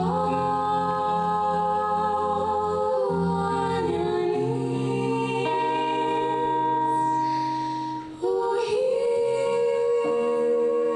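A small group singing slow, long-held notes in harmony, the chord changing every few seconds, with a short break about eight seconds in.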